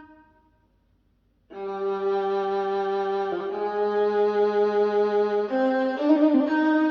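Violin music played through a 1995 Mission 761i loudspeaker. A held note dies away, and after about a second of silence long, sustained bowed notes begin and change pitch a few times.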